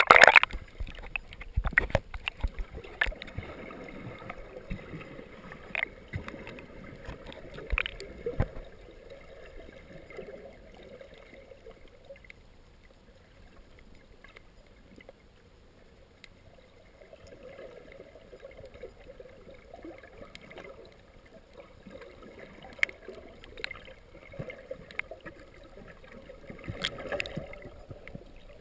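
Muffled underwater sound as the camera plunges below the surface: a splash at the start, then a low murmur with scattered clicks and knocks, as heard through a waterproof camera housing.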